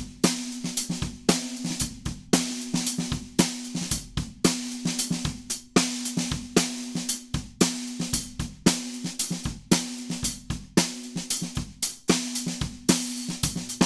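Drum groove on a 14 x 6.5" Sakae brass snare with kick drum and hi-hats, strong hits about once a second, each leaving a steady low ring. The snare is tuned fairly loose and damped with an o-ring.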